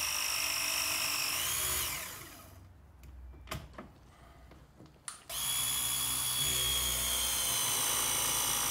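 Milwaukee M12 Force Logic hydraulic press tool crimping a copper ProPress fitting: a steady motor whine whose pitch rises just before the tool stops on its own about two seconds in, the sign that the crimp has reached full pressure. After a few light clicks, the tool starts again about five seconds in on the next fitting and runs steadily.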